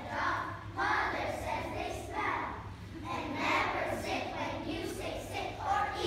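A large choir of young schoolchildren singing together.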